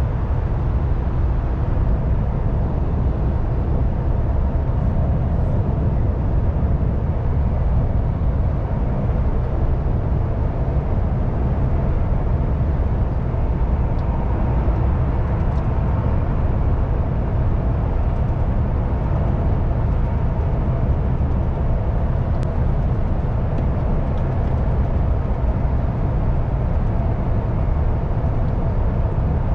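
2020 MAN TGX truck's diesel engine running at a steady cruise with steady road and tyre noise, a deep rumble that holds level without change.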